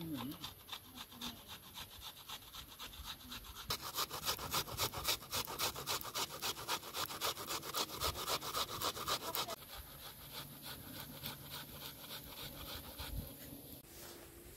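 Onion being grated on a metal box grater: a steady run of quick scraping strokes, several a second, loudest and fastest in the middle stretch and lighter toward the end.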